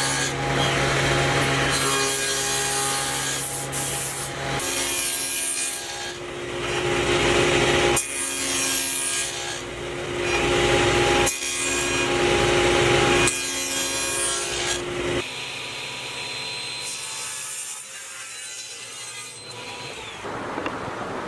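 Woodworking tools cutting and shaping wood in a series of short clips that change abruptly every few seconds, some with the steady hum of a running machine, ending on a quieter stretch.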